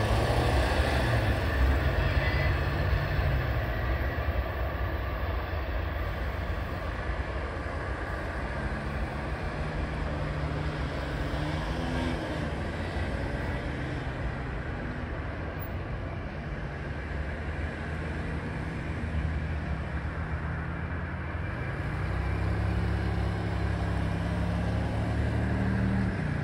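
Low, steady diesel rumble of the departing freight's locomotives, among them a GP38-2 with heavy exhaust, with road cars driving over the grade crossing. The sound eases over the first few seconds and swells again near the end.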